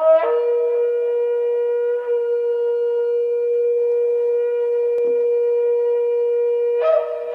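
Shofar (ram's horn) blown in one long, steady blast. It opens with a short higher note, holds a single pitch for about six and a half seconds, and jumps up to a higher note near the end.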